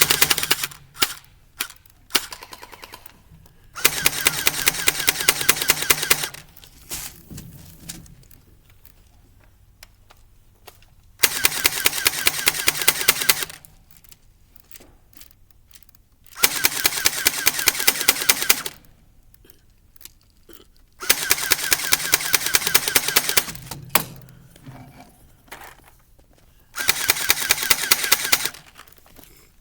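Airsoft gun firing in full-auto bursts, rapid clattering shots. There are five bursts of about two seconds each, roughly five seconds apart, with a few single shots or clicks in the gaps.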